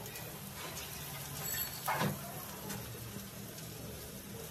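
Quiet kitchen background: a steady low hum under a faint hiss, with a short knock about two seconds in.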